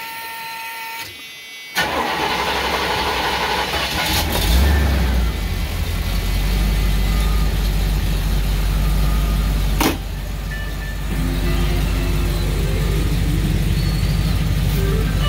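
1976 Excalibur Phaeton's 454 big-block V8 starting up about two seconds in, revving briefly, then running at a steady idle. A sharp click about ten seconds in.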